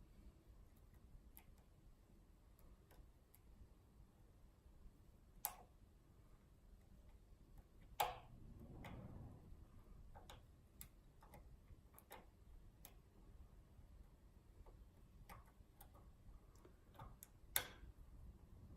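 Faint, irregular clicks and ticks of a lock pick and tension wrench working the pin stacks of a Schlage lock cylinder, with three sharper clicks: about five seconds in, about eight seconds in, and near the end.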